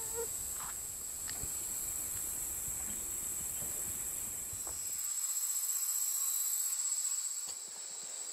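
Insects singing in a steady, high-pitched chorus, one continuous shrill tone that swells louder for a couple of seconds past the middle.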